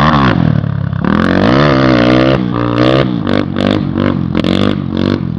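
Honda XR 250 Tornado's single-cylinder engine, built with a stroked crankshaft, being revved: a rev up and back down about a second in, then a quick run of throttle blips, about two or three a second.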